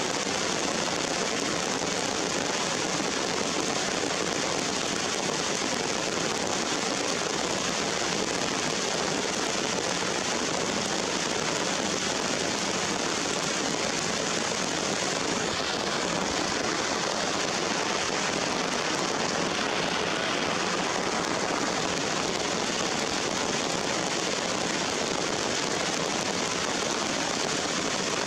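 Steady rain falling on rocks and leaves, an even hiss that doesn't change.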